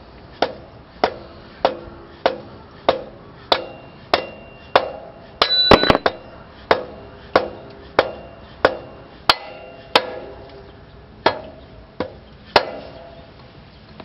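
Rubber mallet tapping a motorcycle rear axle through the wheel hub and swingarm, light even blows about one and a half a second, each with a brief metallic ring from the axle. A louder metallic clatter comes about halfway, and the tapping pauses near the end before one last blow.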